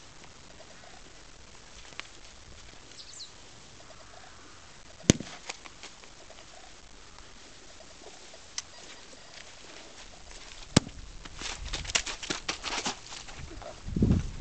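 A horse and a person walking on wood chips, a run of soft crunching hoof- and footsteps that starts about eleven seconds in. Before that, two sharp knocks several seconds apart stand out over faint bird calls.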